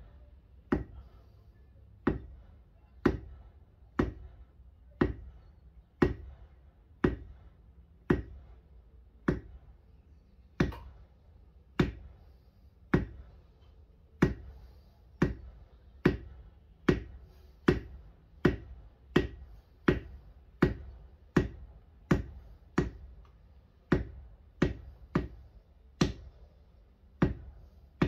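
A mallet striking a leather texture stamp over and over, about thirty sharp knocks tooling a texture into a knife sheath's leather. They come about once a second at first and quicken to roughly one and a half a second in the second half.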